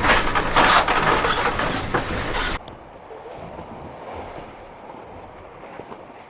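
Loud rushing wind and water on a racing yacht's deck, mixed with mechanical grinding and clicking while the J2 headsail is being furled with a winch handle. The sound cuts off abruptly about two and a half seconds in, leaving a much quieter, steady background hiss.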